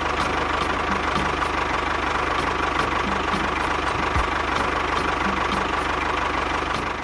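Tractor-style engine idling steadily, with a regular light knock about three times a second.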